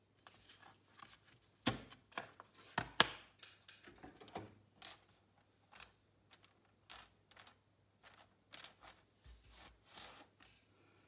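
Irregular light clicks and knocks of small things being handled on a cutting mat: a caliper put away in its plastic case, then thin wooden spoke strips laid out and tapped together into a bundle. The loudest knocks come about two and three seconds in.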